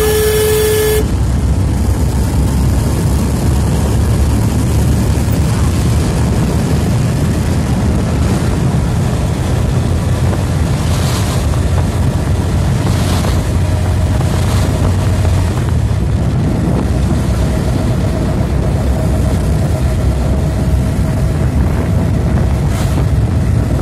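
Steady engine and road rumble heard from a moving vehicle, with wind on the microphone. A short, clear beep sounds right at the start.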